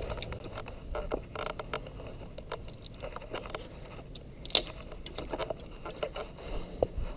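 Irregular crackling, scraping and rustling of a person clambering through dry brush and over a fallen tree at a creek bank, with one sharp click about four and a half seconds in.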